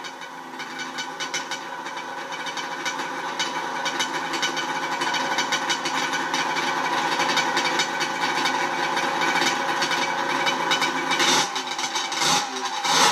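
Kawasaki H2 750cc air-cooled three-cylinder two-stroke engine in a go-kart, idling with a fast, dry rattle. Near the end the throttle is blipped a few times, the revs dipping and rising sharply.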